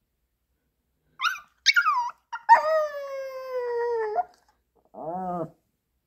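Pomeranian howling and whining in separation distress after its owner has left home: two short high yelping cries about a second in, then one long howl that slowly falls in pitch, then a shorter, lower cry near the end.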